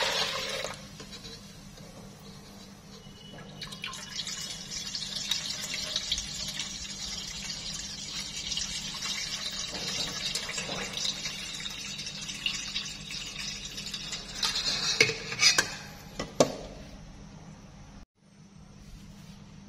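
Crab water being poured from a stainless steel bowl into a stainless steel pot, a steady trickle and splash as the clear top liquid is decanted off the settled crab. A few light metal clinks sound near the end.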